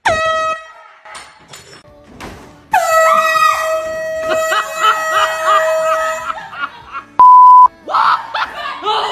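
Handheld air horn blasted twice: a short blast at the start, then a long blast of about three and a half seconds, with a person yelling over it. A short steady beep sounds near the end, followed by voices.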